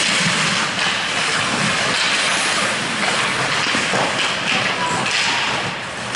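Ice hockey play on a rink: skate blades scraping the ice and sticks knocking as players jostle in front of the net, a steady hiss of play with occasional knocks.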